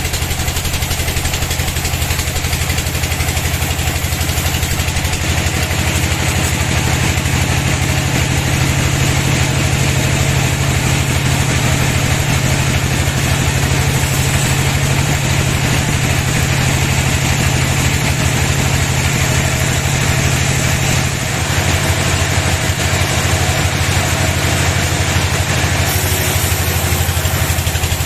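Band sawmill machinery running steadily: a low motor drone with a fast even pulse and a hiss above it, the drone shifting in pitch about 21 seconds in.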